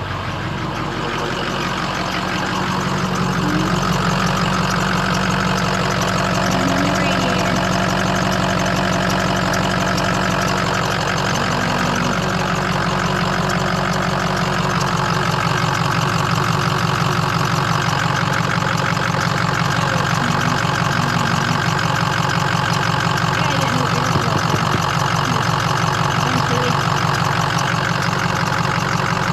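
Ford pickup truck's engine idling steadily, heard up close under the open hood and growing louder over the first few seconds as it is approached. It is idling as a test of a newly fitted thermostat, radiator and fan.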